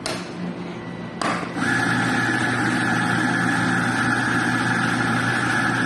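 A click, a second click about a second later, then an espresso machine's built-in grinder starts and runs with a steady hum for about four seconds.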